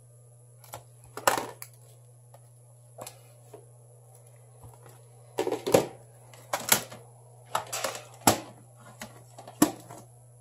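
Irregular clicks, taps and short crackly rustles of a phone and small repair tools being handled on a workbench, over a steady low hum.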